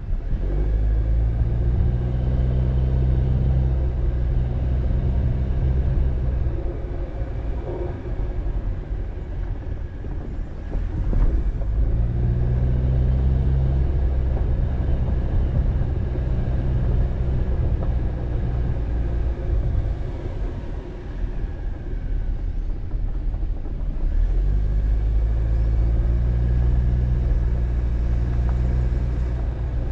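Car driving on a dirt road: a steady engine note over low road rumble. The engine note fades out twice, about a third and about two thirds of the way through, and comes back each time.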